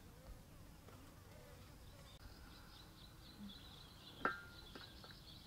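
Faint insect noise, a steady high-pitched drone, with one sharp click about four seconds in.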